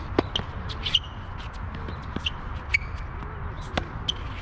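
Tennis ball being struck by rackets and bouncing on a hard court during a rally: a few sharp pops spread through the exchange, the loudest about a quarter second in and another near the end.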